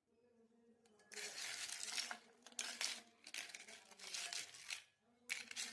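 Dry crinkling and crackling in four bursts, with a faint low hum underneath.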